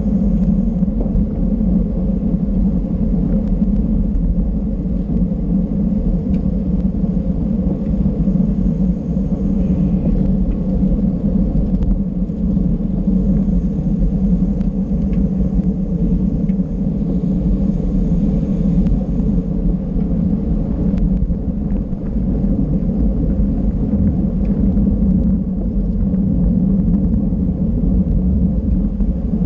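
Steady low wind rumble on the microphone with road and tyre noise from a road bicycle ridden at race speed.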